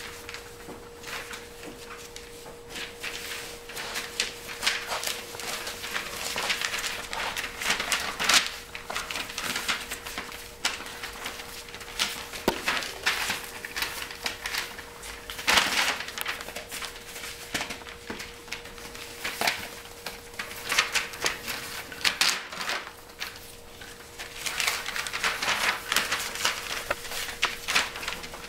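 Five-week-old pointer puppies scampering about on loose paper sheets over a hard floor: the scrabble and patter of small paws and claws with paper crinkling and rustling, in irregular flurries. A steady faint hum runs underneath.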